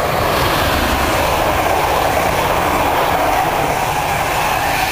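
Greater Anglia intercity train, a Class 90 electric locomotive with coaches, passing at speed close by. A steady, loud rush of wheels on rail and air, with a tone that slides slowly down as the coaches go by.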